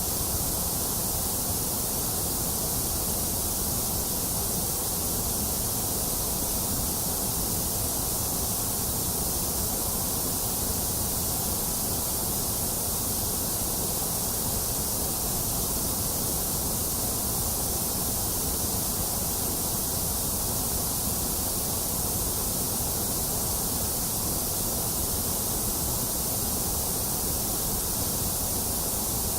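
Steady white noise: an even, unbroken hiss, bright in the treble, that does not change.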